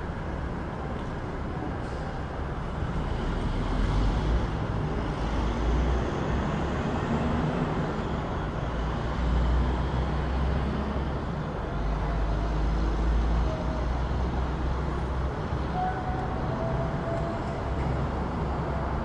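City traffic: a steady wash of road noise with the low rumble of passing vehicles, growing heavier a few seconds in as larger vehicles go by.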